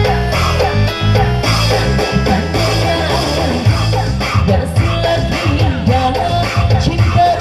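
Amplified live band music through a PA, with women singing into microphones over a keyboard, a bass line and a steady beat.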